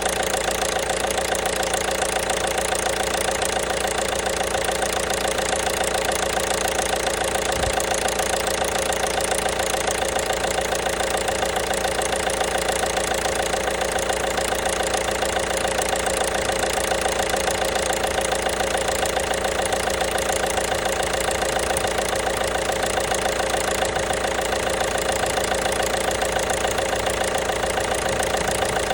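1.5 BlueHDi (DV5RC) four-cylinder turbodiesel idling steadily with a rapid knocking running through its clatter, a knock in the engine.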